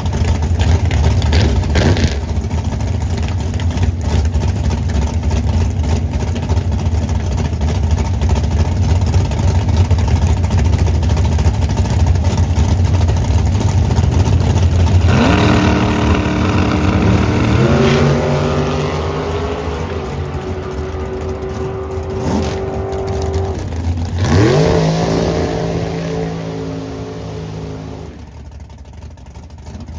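Drag race car engines. A heavy low rumble runs for the first half, then about halfway through engine notes climb in steps under hard acceleration, climb again later, and drop off near the end.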